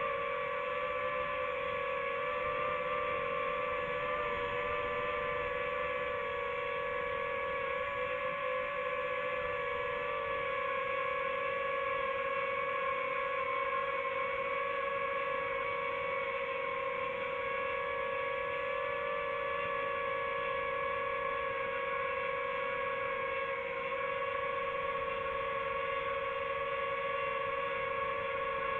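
Multirotor drone hovering, its propellers giving a steady whine of several close pitches that waver slightly.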